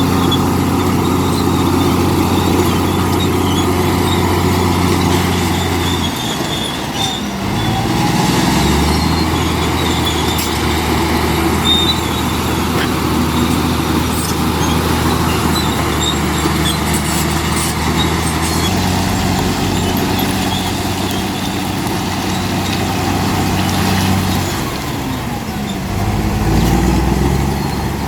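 Large diesel engine of heavy earthmoving machinery running hard. Its pitch drops about six seconds in and climbs again a few seconds later, then dips and rises once more near the end, as the engine is throttled back and opened up again.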